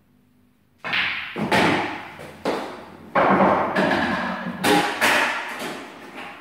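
A pool shot and the play that follows: a sharp knock about a second in, then a string of loud knocking, rattling strokes that each fade over about half a second.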